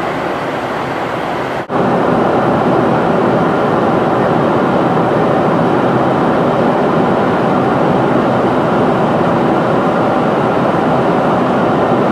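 Steady cabin noise of a Boeing 747-400 in flight: airflow and its four GE CF6-80C2 engines heard from inside the cabin. It drops out briefly just under two seconds in, then comes back a little louder.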